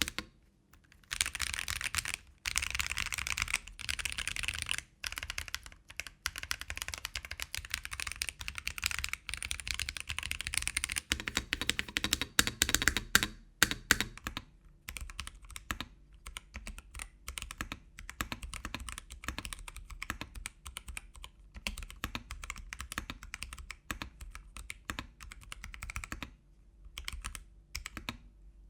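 Typing on a mechanical keyboard fitted with Akko tactile switches. A fast, dense run of keystrokes fills the first half, then slower, more spaced-out key presses follow, with a short pause near the end.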